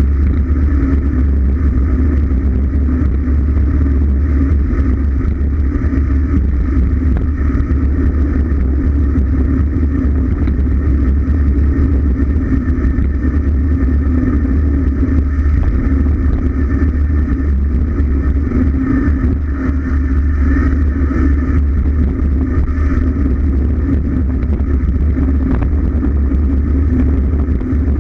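Steady, loud wind buffeting the microphone of a camera on a bicycle going fast downhill, a deep rumble that holds without a break.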